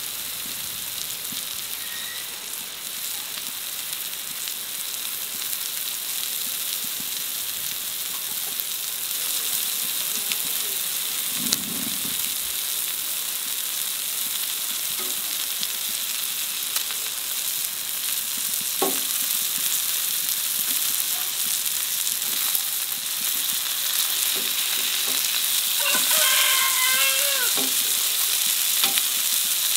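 Chicken burger patties sizzling as they fry in oil in a nonstick pan, a steady hiss that grows gradually louder, with a few light clicks of utensils against the pan.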